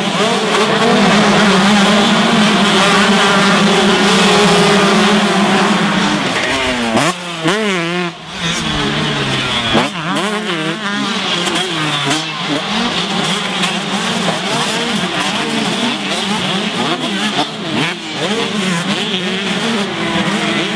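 A pack of two-stroke motocross bikes racing, many engines at high revs at once. From about seven seconds in, single bikes rev up and down in quick rising and falling sweeps as they take jumps and corners.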